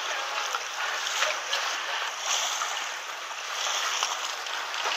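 Seawater washing over shore rocks: a steady rushing, swelling and easing a little, with faint splashes.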